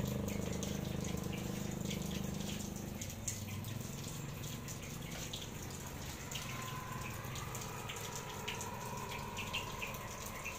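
Water running and splashing onto plants and pots, with scattered drips. A low steady hum underneath stops about three seconds in.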